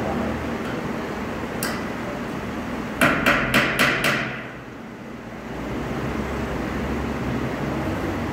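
Five quick, sharp hammer blows about a second in total, over a steady workshop hum.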